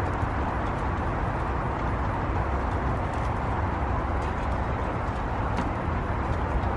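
Steady outdoor background noise, heaviest in the low range and unchanging, with a few faint light ticks.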